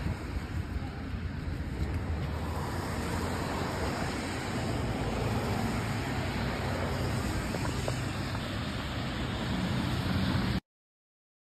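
Steady outdoor street noise: road traffic with wind buffeting the microphone, mostly a low rumble. It cuts off abruptly near the end.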